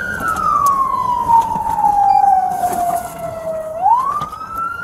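Police car siren on a slow wail, from inside the patrol car: it holds high, falls gradually for a few seconds, then sweeps quickly back up near the end.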